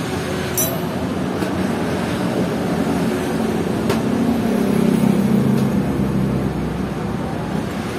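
Steady road-traffic noise with a vehicle's engine rumble swelling a little past halfway and fading again near the end, and a few light clicks.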